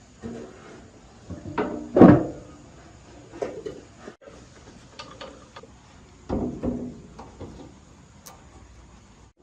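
Irregular knocks and clunks of hard parts being handled and set down during restoration work. The loudest comes about two seconds in, and a second strong pair comes around six and a half seconds, with lighter taps in between.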